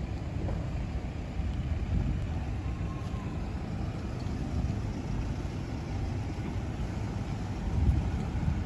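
Steady low rumble of vehicle engines in an open car park, mixed with wind on the microphone, growing louder near the end as an SUV drives slowly past close by.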